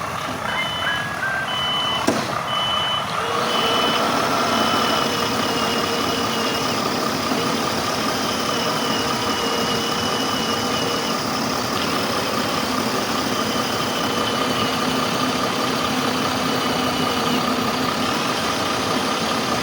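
Truck engine running steadily. A reversing beeper beeps repeatedly, about twice a second, during the first few seconds.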